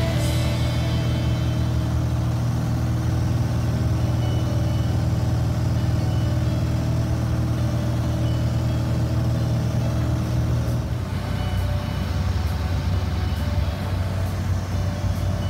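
Cessna 172's piston engine and propeller droning steadily, heard inside the cabin. The drone drops slightly in pitch about eleven seconds in.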